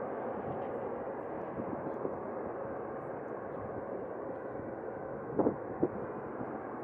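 Steady distant roar of a FedEx Boeing 767-300F's GE CF6 turbofans as the freighter rolls out after touchdown on the runway. Two short sharp knocks stand out about five and a half seconds in.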